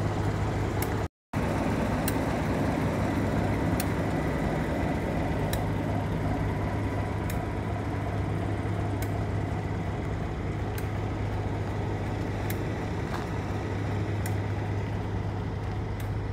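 A diesel locomotive engine idling: a steady, low drone that holds at one pitch, broken by a brief dropout about a second in. Faint, sharp ticks sound at regular intervals of about one and a half to two seconds.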